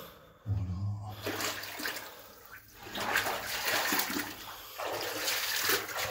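Irregular scuffing and rustling of someone moving along a narrow rock-cut tunnel close to the handheld phone's microphone, in uneven surges of noise.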